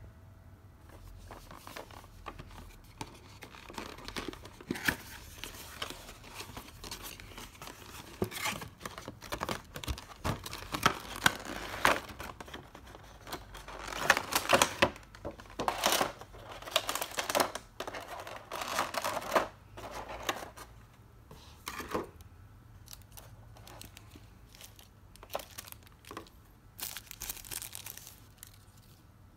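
A figure's cardboard box and clear plastic blister packaging being handled and opened: irregular rustling and crackling of plastic and cardboard, busiest through the middle and sparser near the end.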